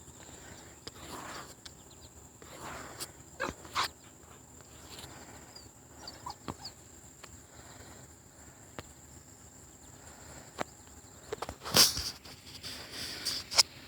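Dog and puppies stirring: faint high squeaks, rustling and scattered clicks, with a louder noise near the end.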